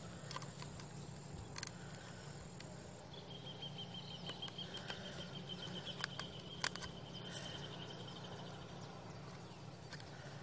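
Quiet outdoor background with a few sharp clicks as a digital hanging scale and its metal snap clip are handled. A thin, high, steady tone runs for the first few seconds, then a lower pulsing trill carries on for about five seconds.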